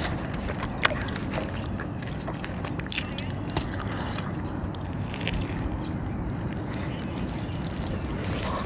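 Biting into and chewing a Wendy's breakfast sandwich close to the microphone, with a few sharp mouth clicks, over a steady low rumble of wind on the microphone.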